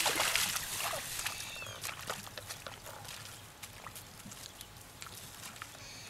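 Wet mud and shallow water sloshing and squelching, loudest in the first second, then fading to scattered small clicks and rustles.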